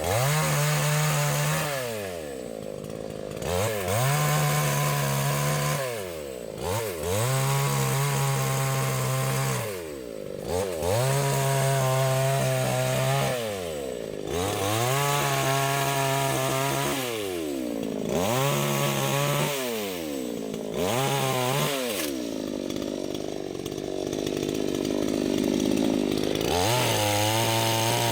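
Small, cheap two-stroke chainsaw cutting a fallen tree, revving up to full speed and dropping back again and again, about seven times. A few seconds before the end it runs lower and rougher, then revs up once more.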